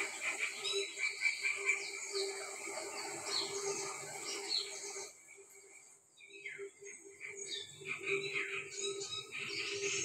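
Small birds chirping, a dense chorus of short, quick high chirps and calls. The chirping cuts off for about a second around the middle and then starts again.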